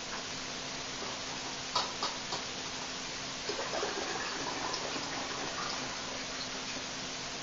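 Liquid sounds from fizzy, carbonated home-brewed kombucha over a steady hiss, with a few sharp clicks about two seconds in.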